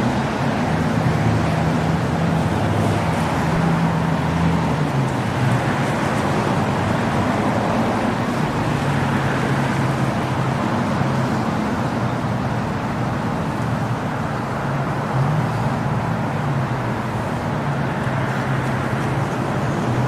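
Motor vehicle engines running steadily, a low hum that shifts pitch every few seconds, under a constant wash of outdoor traffic noise.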